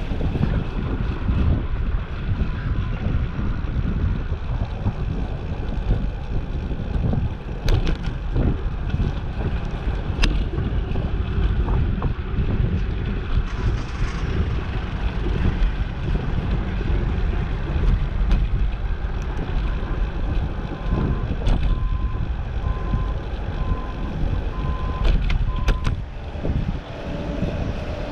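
Wind buffeting the microphone of a camera riding on a moving bicycle: a steady low rumble with a few sharp clicks. A faint series of short beeps repeats for a few seconds past the middle.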